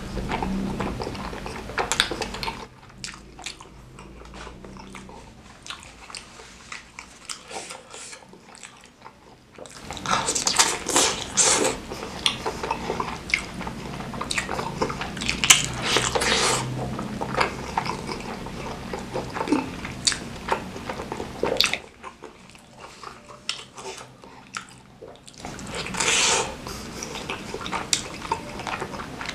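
Close-miked wet chewing and biting of soft, chewy tapioca meatballs (bakso aci) in spicy broth, with smacking mouth sounds. There are louder spells of chewing partway through and near the end.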